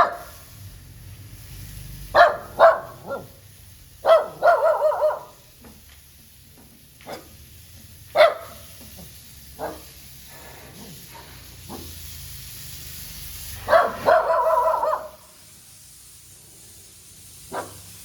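Puppies barking and yelping in short, high calls, some singly and some in quick runs of several, with pauses between.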